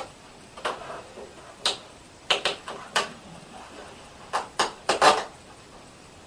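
Wallpaper template being peeled off a sheet of acrylic: a run of short, sharp paper crackles and rustles at irregular intervals, loudest near the end.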